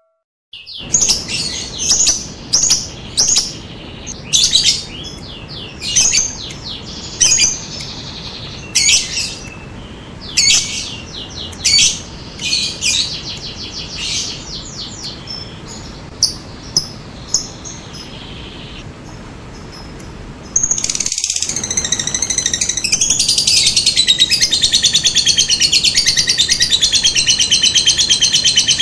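Lovebird calling: a string of sharp, high chirps, each a quick run of clicks, over a steady hiss. From about 20 seconds in, after a brief break, it changes to one continuous, louder, fast chattering trill, the long call that lovebird keepers call ngekek.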